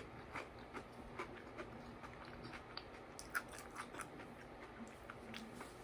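A person chewing food close to the microphone: soft, irregular mouth clicks and smacks, several a second.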